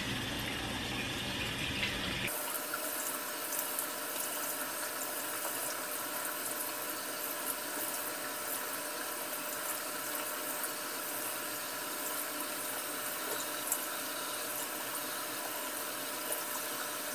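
Bathroom sink tap running steadily while warm water is splashed onto the face to rinse off face cream, with light splashes throughout. A lower hum under it stops about two seconds in.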